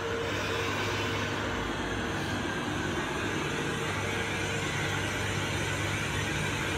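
SNCF Régio2N double-deck electric train humming steadily with a low hum and hiss from its onboard equipment. A thin steady whine stops about two and a half seconds in.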